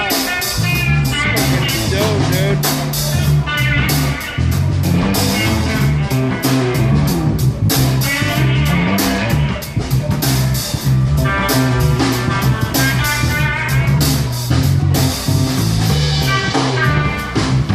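Live blues-rock band playing loudly: an electric guitar lead with bending notes over drum kit and bass.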